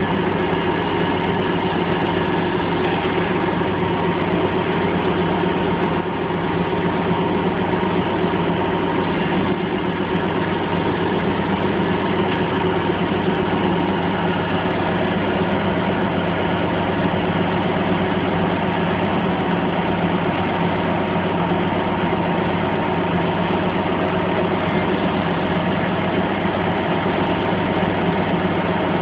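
Crane engine running steadily: a constant, unchanging drone with a few steady tones in it.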